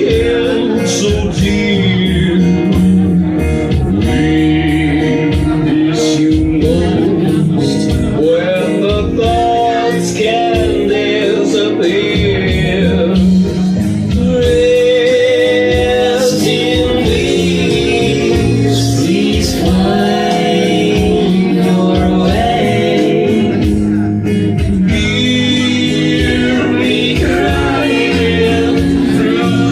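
A loud song with singing and backing instruments, playing steadily.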